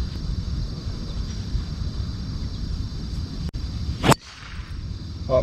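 A golf club swung and striking the ball about four seconds in, a single sharp crack, over steady low background noise.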